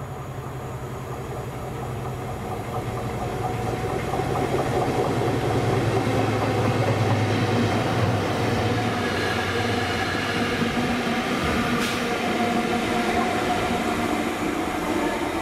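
A light-engine convoy of Colas Class 70 diesel-electric locomotives passing close by with their engines running. A low steady drone builds for the first half, then gives way to higher steady tones, with a single short click near the end.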